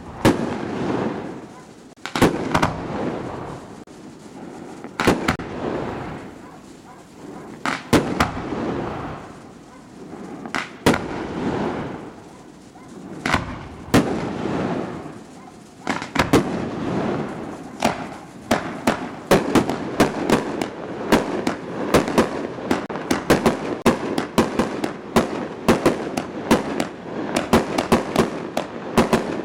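Aerial fireworks going off. In the first half, single sharp bangs come every two or three seconds, each trailing into a fading crackle. From about halfway they give way to a rapid run of many bangs a second.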